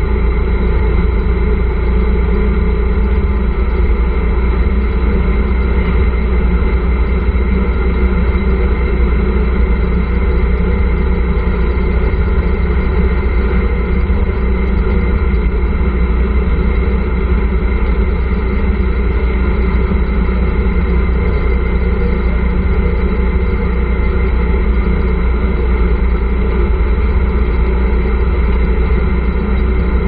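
Tricycle's motorcycle engine running at a steady speed, with a heavy low rumble underneath.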